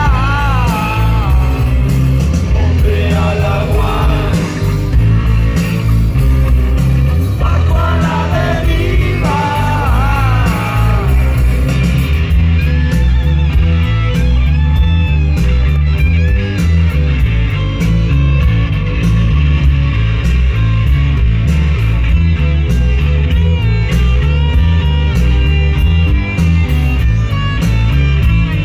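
Live rock band playing through a festival PA, electric guitars, bass and drums with heavy bass. A sung vocal line runs through the first part, then gives way to an instrumental guitar passage about twelve seconds in.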